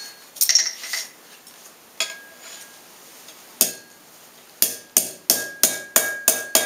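Ball peen hammer striking a forged steel bottle opener on an anvil: a few scattered clinks, then from about halfway light, even blows about three a second, each with a short metallic ring. The blows are kept light to true the piece flat without flattening its hammered texture.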